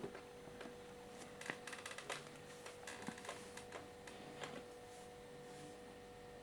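Faint scattered clicks and taps, several in quick succession about one and a half to two seconds in, over a steady faint hum.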